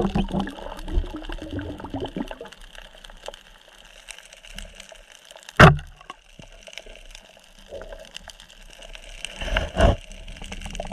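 Water gurgling as heard underwater on a diver's camera, with small clicks throughout, one sharp knock about halfway through and another loud thud near the end.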